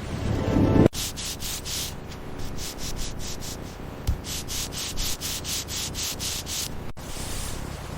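Hand sanding in quick back-and-forth strokes, about three to four hissing strokes a second. A louder, lower rushing sound comes before it and cuts off abruptly about a second in, and the stroking gives way to a steadier hiss near the end.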